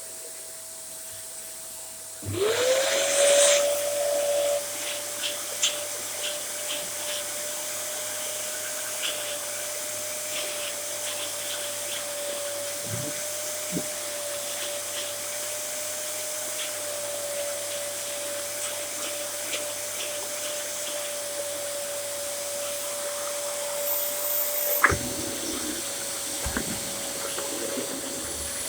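Two Dyson upright vacuum cleaners, a DC07 and a Small Ball Allergy, running together with a steady high motor whine. About two seconds in, a second motor starts and spins up with a rising whine and a loud rush of air. Near the end, one motor is switched off and winds down with a falling whine while the other keeps running.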